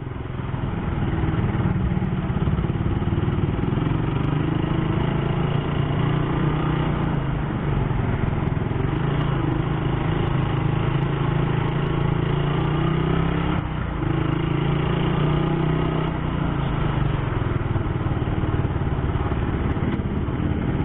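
Motorcycle engine running while being ridden, at a fairly steady pitch with gentle rises and falls.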